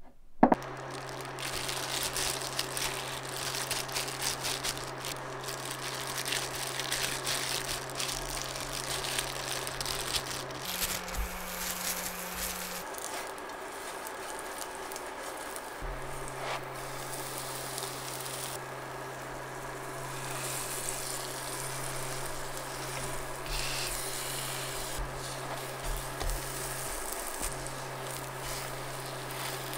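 Hotteok frying in oil in a frying pan: a steady crackling sizzle, under a steady low hum that briefly steps up in pitch about eleven seconds in.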